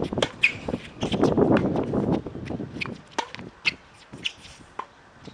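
Tennis rally on an outdoor hard court: sharp racket-on-ball hits, ball bounces and footsteps on the court, with birds chirping. A second-long rush of noise comes about a second in.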